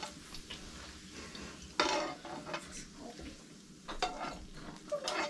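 Metal spoon scraping and knocking against a frying pan as browned pork fat is scooped out into a wok, over a steady sizzle of frying. The loudest scrapes come about two seconds in and again around four seconds.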